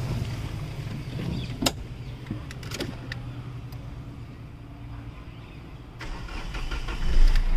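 A sharp knock and a few clicks, then near the end the Hyundai Verna's diesel engine is cranked and fires, settling into a steady run. It starts readily with a replacement ECM fitted.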